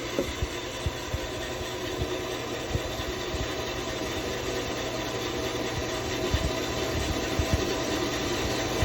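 A WEN 10-inch bandsaw running with its stock blade, cutting a piece of lignum vitae: a steady hum and blade noise with scattered low knocks.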